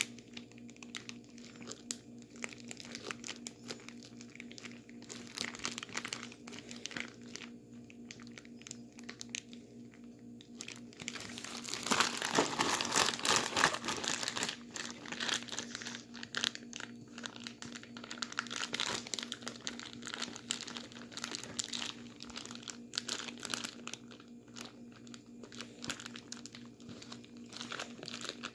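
Plastic bag holding ice and salt crinkling and crunching as it is worked by hand, with a louder, denser stretch of rustling about twelve seconds in. A steady low hum runs underneath.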